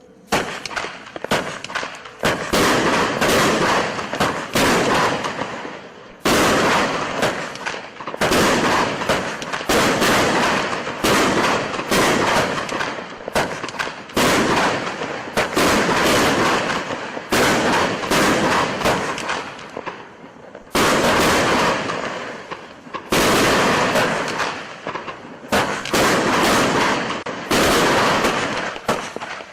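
Wolff 'Fabelhaft' 100-shot F2 firework battery firing: a dense, continuous run of launch and burst reports in quick succession for the whole stretch, with short lulls between volleys and sudden louder surges.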